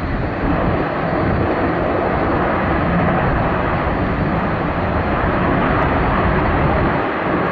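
Airbus A330 jet engines giving a steady, loud rush with a deep rumble as the airliner rolls along the runway after landing; it swells in the first second, then holds.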